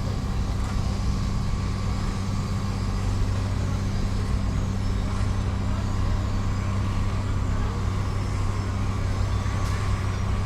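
A heavy engine running steadily at a constant pitch, giving a low, even hum.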